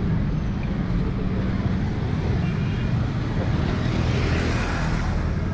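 City street traffic: a motorbike engine running close by over a steady low rumble of passing vehicles.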